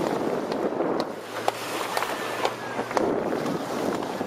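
Water rushing past the hull of a moving dive boat, with wind on the microphone. A low engine hum comes in about a second in and fades near three seconds, and short ticks come about twice a second.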